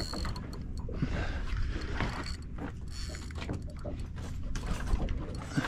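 Fishing reel being wound while fighting a hooked snapper, with mechanical clicks and rod-handling knocks over a steady low rumble.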